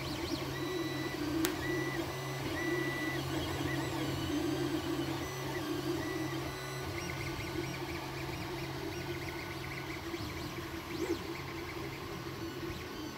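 A Creality Ender FDM 3D printer printing: short pitched whines from its stepper motors as the print head moves, over the steady hum of its fans. There is one sharp click about a second and a half in.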